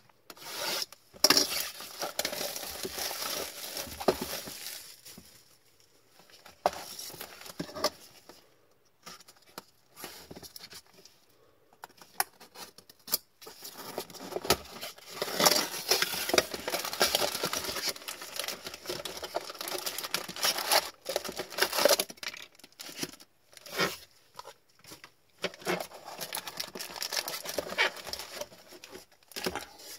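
Plastic shrink-wrap on a trading card hobby box being slit with a box cutter and torn off, crinkling and crackling in bursts with quieter pauses between. Near the end, foil card packs rustle as they are lifted out of the opened cardboard box.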